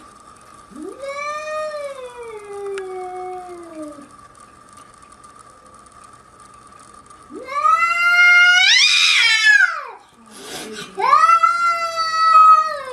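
Angry cat caterwauling: three long, drawn-out threat yowls. The first falls in pitch, the second rises to a loud peak, and the third is held and then falls away, with a short noisy burst between the last two.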